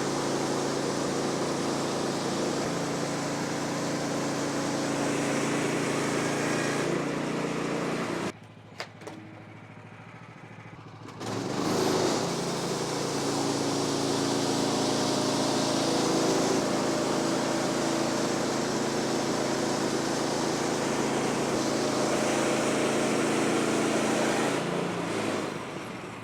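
Small gasoline engine of a Woodland Mills portable bandsaw sawmill running steadily under load while the band blade cuts along a post oak log. The sound drops away for about three seconds roughly a third of the way in, comes back, and dies away just before the end.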